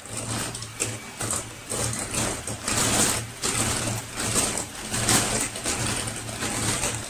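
Bosch electric hand mixer running at low speed, its wire beaters whisking a runny egg-and-sugar batter, with irregular scraping and knocking of the beaters against the stainless steel bowl.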